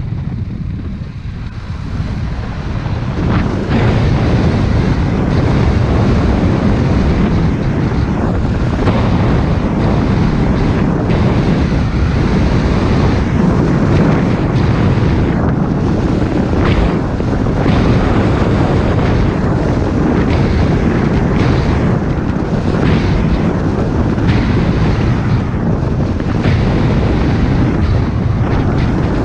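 Wind rushing over the microphone of a camera on a moving car, mixed with tyre and road noise. It grows louder about three seconds in as the car speeds up, then stays steady with occasional brief gusts.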